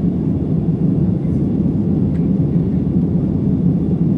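Steady, even cabin rumble of an Airbus A320 climbing out after takeoff: jet engines and airflow heard from a window seat.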